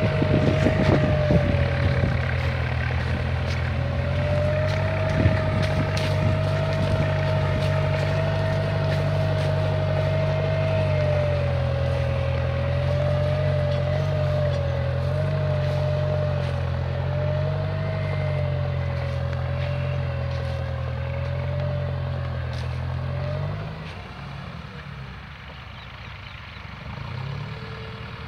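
Deutz-Fahr tractor's diesel engine running steadily under load while pulling a tine cultivator, with a wavering high whine above the engine note. About three-quarters of the way through, the sound drops off as the tractor moves away.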